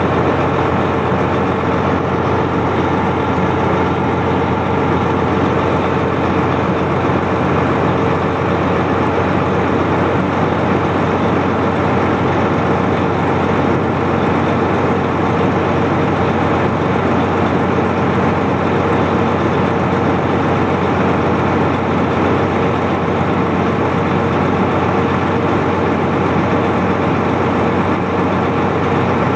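Mack dump truck's diesel engine idling steadily.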